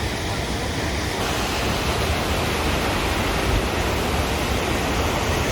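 Steady, loud rushing of a large waterfall: Athirapilly Falls, the Chalakudy River plunging over a rock cliff.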